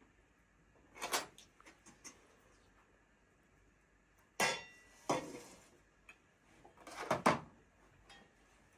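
Kitchenware being handled: several separate clinks and clattering knocks. The loudest, about halfway through, leaves a short metallic ring.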